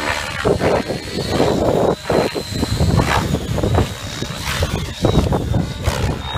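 Radio-controlled model helicopter flying overhead, its motor and rotors giving a thin, steady high whine that drifts slightly in pitch. Gusts of wind buffet the microphone.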